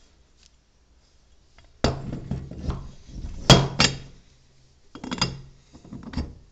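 Metal parts of a feathering propeller knocking and clinking together as the blades and back cap are handled and fitted onto the hub body. The clinks start about two seconds in, with the sharpest knock about halfway through and a few more near the end.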